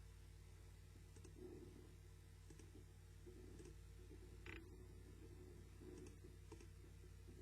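Near silence: a steady low hum with a few faint, scattered clicks, the loudest about four and a half seconds in.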